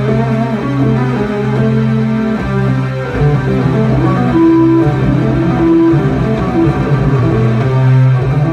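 Amplified electric bass played solo: long held low notes, then a busier run about three seconds in with two short higher notes ringing out around the middle, before low sustained notes return near the end.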